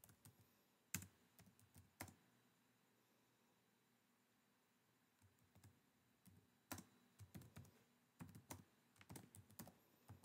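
Faint computer keyboard typing: a few separate keystrokes at first, a pause of a few seconds, then a quicker run of keystrokes through the second half.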